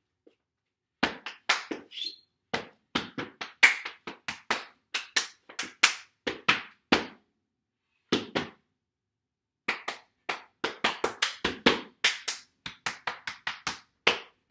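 Stepping routine performed at full speed: a dancer's feet stomping on a hard floor and hands clapping, a fast, uneven run of sharp hits with two short breaks midway.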